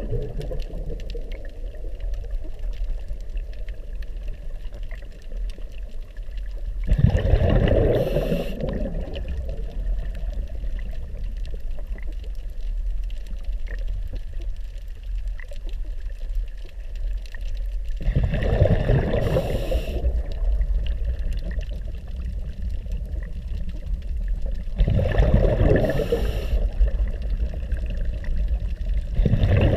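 A scuba diver breathing underwater: a rush of exhaled bubbles from the regulator roughly every seven to eleven seconds, with a steady low rumble of water in between.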